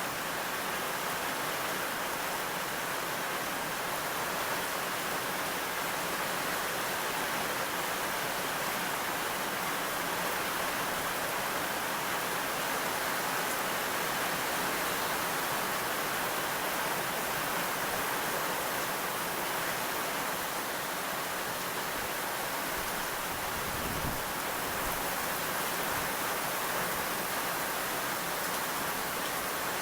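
Steady, dense rainfall hissing evenly. About three-quarters of the way in there is a faint low rumble of distant thunder.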